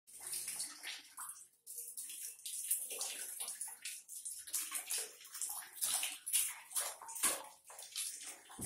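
Water splashing in a shallow plastic basin as a baby slaps and paddles it with its hands, in a run of quick, irregular splashes.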